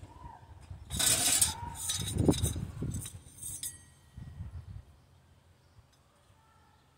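Thin stainless steel camping-stove parts being handled: sheet-metal pieces clinking and clattering together, busiest in the first half, with a few lighter knocks after and then quiet handling.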